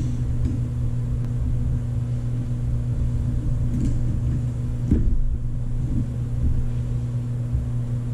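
A steady low hum runs throughout, with a few light clicks and one sharper knock about five seconds in as the metal bench-mount bike clamp's quick-release and tension knob are worked by hand.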